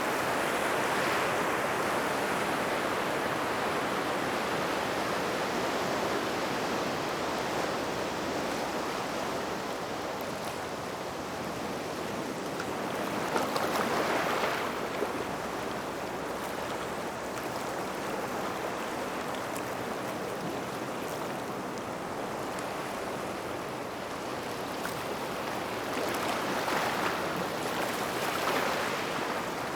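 Waves washing onto a gravel shore: a steady rush of surf, with a wave surging in louder about halfway through and again near the end.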